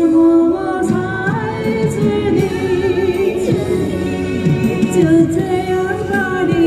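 A woman singing a Chinese pop song into a handheld microphone over a backing track, both played through a small portable amplifier, with long held notes.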